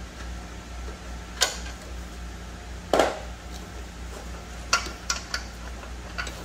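A few sharp metallic clinks and knocks from parts and tools being handled in a car's engine bay, irregular, the loudest about three seconds in and a quick cluster near the end.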